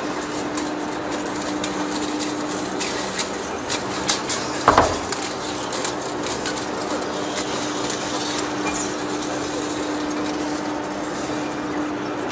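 Large engine lathe turning a big steel workpiece while the cutting tool takes a cut: a steady machine hum with a low tone, overlaid with a run of metallic ticks and clinks from the chips. One louder clank comes a little under five seconds in.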